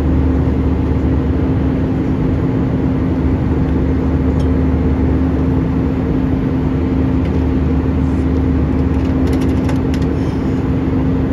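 Passenger jet cabin in flight: a steady, loud rush of engine and airflow noise with a constant low hum and one unchanging tone.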